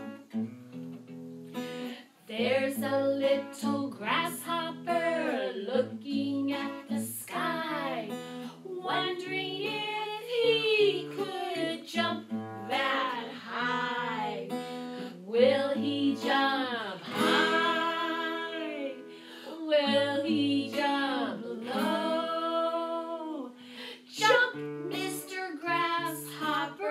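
Women singing a children's action song, accompanied by a strummed acoustic guitar.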